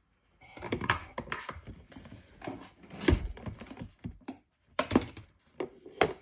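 Cosmetic products and packaging being handled and set down: a run of small clicks, taps and rustles, with a heavier thump about three seconds in and sharp knocks around five and six seconds.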